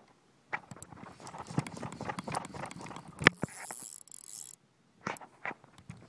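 Irregular clicks, taps and rubbing from a hand working close to a fly reel with the phone pressed against it, and a high hiss that cuts off suddenly about four and a half seconds in.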